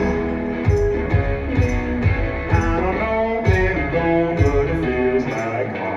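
Live band playing an instrumental passage of a song: guitar notes over a steady beat.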